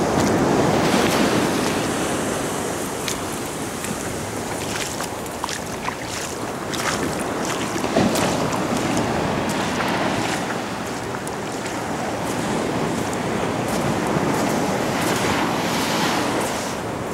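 Ocean surf breaking and washing up the beach: a continuous rush of water that swells and eases, loudest at the start and again about halfway through.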